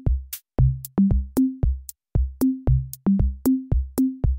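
Background music: an electronic drum-machine beat of deep kicks and pitched drum hits at a few different pitches, about four hits a second, with nothing else heard.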